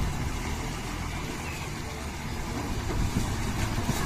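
Diesel engine of a loaded Tata multi-axle dump truck running steadily at low speed as it pulls through deep mud.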